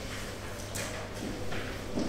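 Exam room ambience: a steady low hum under scattered small noises, with a short rustle a little under a second in and soft knocks later.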